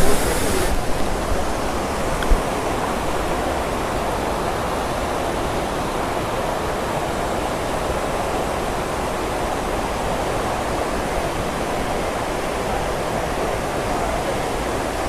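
Steady rushing of a monsoon-swollen stream and waterfall.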